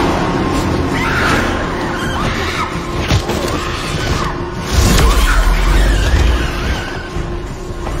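Monster-fight film soundtrack: dramatic score mixed with a creature's screeches and heavy impacts. There is a sharp hit about three seconds in and a deep booming crash just before five seconds.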